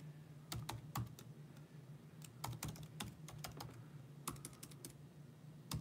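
Typing on a computer keyboard: short, irregular runs of key clicks with pauses between them, over a faint steady low hum.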